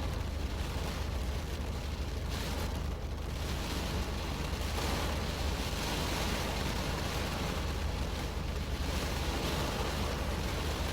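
Rain falling on a car, heard from inside the cabin: a steady hiss of rain over a deep, constant low rumble.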